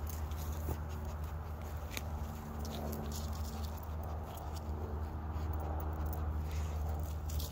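Scattered light clicks and footsteps over a steady low hum.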